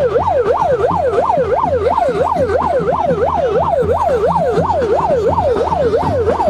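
Electronic siren sounding a fast yelp, its tone sweeping up and down about three times a second.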